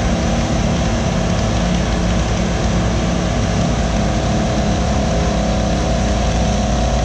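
Euclid TC-12 crawler dozer's twin GM Detroit Diesel two-stroke engines running steadily under load as it pushes dirt with its blade.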